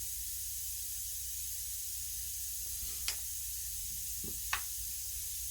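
Steady hiss with a low hum underneath, broken by two brief light clicks, about three seconds in and again about a second and a half later.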